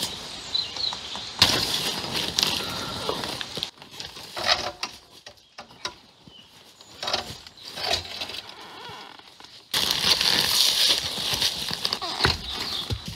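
Scuffing and crackling of a person moving on dry leaves, twigs and stones while handling a fallen motorcycle, with scattered knocks and clicks. The engine is off. The rustling noise drops for several seconds, then comes back loud abruptly near the end.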